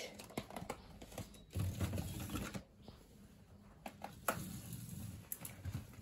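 Plastic food storage boxes being handled and shifted on refrigerator shelves: a scatter of quiet clicks and knocks, with some low handling rumble.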